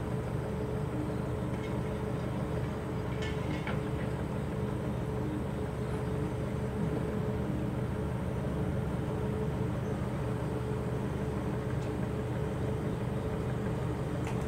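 A steady low mechanical hum with a constant tone that never changes, and a few faint ticks about three to four seconds in.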